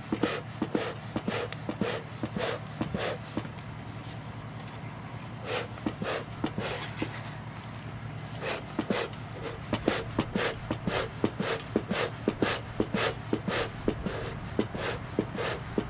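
Beehive smoker bellows pumped over and over, each squeeze a short puff of air, about two a second with a couple of brief lulls, while pine needles are packed into the smoldering fire chamber to get it burning.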